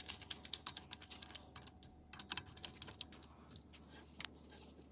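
Rapid, irregular light clicks and rattles of hand tools and small metal parts being handled while working on a whole house fan motor's wiring, thick for about three seconds, then sparser.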